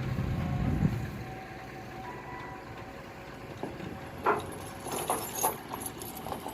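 Heavy truck engine running, falling away within the first second, then a few scattered knocks and clanks, the loudest about two-thirds through.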